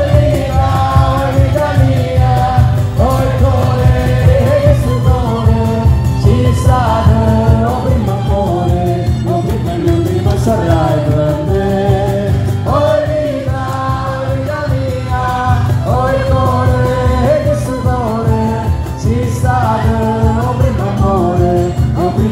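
Live band playing a song with a sung melody over a steady beat.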